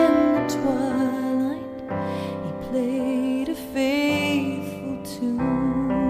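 A slow, tender ballad with sustained keyboard chords under a wavering melody line.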